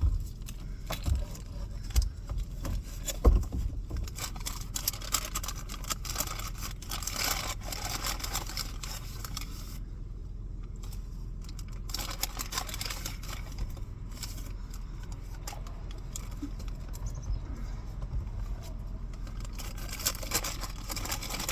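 Handling of a lunch tray and food: irregular clicks, rustles and scrapes, with a few sharp knocks in the first four seconds, over a steady low hum.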